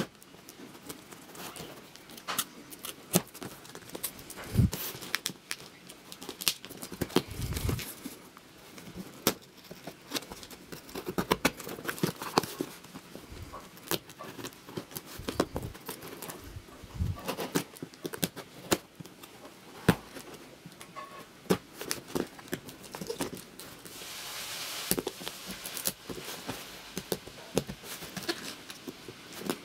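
A cardboard parcel in a clear plastic sleeve being handled and opened with a knife: crinkling plastic with many irregular taps and scrapes, and a longer scratchy stretch about three-quarters of the way through as the knife works at the packing tape.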